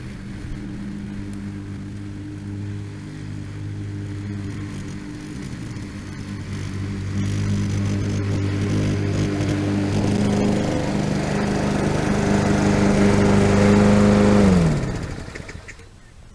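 Lawn-Boy mower's Tecumseh four-stroke engine running steadily and growing louder, then shut off about fifteen seconds in, its pitch falling as it winds down to a stop.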